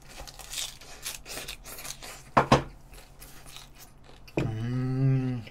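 A person chewing a big mouthful of lettuce wrap (ssam) with grilled pork belly and rice, with many small crunching clicks and two sharp louder clicks a little over two seconds in. Near the end comes a closed-mouth "mmm" hum of about a second, rising then falling in pitch.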